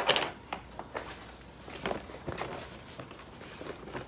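Handling noises from a large PVC tote bag: a quick cluster of sharp clicks and rustles at the start, then scattered light rustles and taps.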